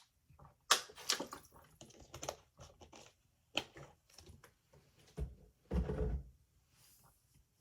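Handling noise at a desk: a scatter of short clicks and light knocks, with a heavier low thud about five to six seconds in.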